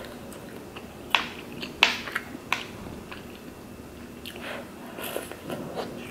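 Close-up chewing and mouth sounds of someone eating tteokbokki, soft chewy rice cakes in sauce. There are three sharp clicks between about one and two and a half seconds in, and softer wet chewing near the end.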